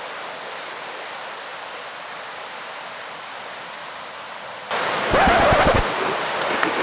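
Steady wash of sea surf at the beach. About four and a half seconds in it jumps suddenly louder, with low wind rumble on the microphone and faint voices.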